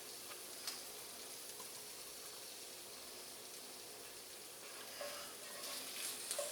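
Shaved ribeye and cheese sizzling quietly in a hot pan on residual heat after the burner is off, a steady faint hiss, with a light click early and a few small scrapes near the end.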